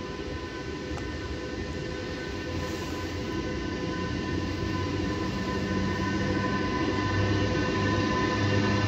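DB class 101 electric locomotive hauling passenger coaches as it approaches along the platform track, its rumble growing steadily louder. A low hum strengthens in the second half. The sound echoes in an enclosed underground station hall.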